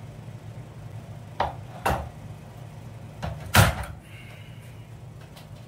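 Vinyl deco tile planks knocking and clacking as they are handled and set down on the floor: four sharp knocks, the loudest about three and a half seconds in.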